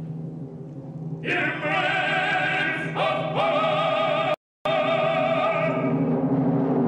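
Opera chorus singing: a low held chord, then voices come in strongly with vibrato about a second in and again a couple of seconds later. The sound cuts out completely for a moment near the middle.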